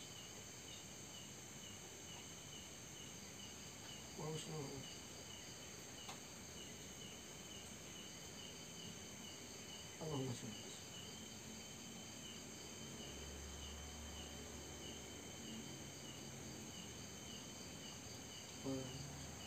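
Crickets and other night insects chirping steadily: a pulsing high chirp about twice a second over a constant high hum. A person's voice sounds briefly three times, low and short.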